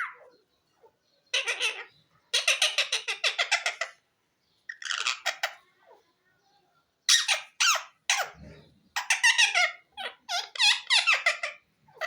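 Green parrot talking in its squeaky mimicking voice: about six short, rapid-fire phrases with brief pauses between them.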